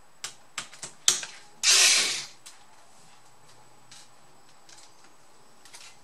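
Cordless electric screwdriver driving a screw into a laptop motherboard: a few sharp clicks, then one short, loud burst of the tool running, under a second long.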